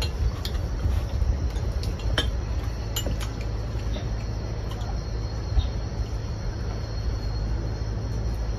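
Chopsticks and spoons clicking lightly against porcelain bowls during a meal, over a steady low rumble and a faint, steady high insect drone.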